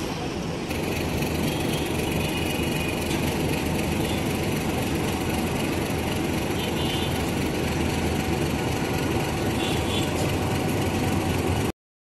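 Meter-gauge diesel locomotive engine running steadily as the locomotive moves slowly along the yard tracks. The sound cuts off abruptly near the end.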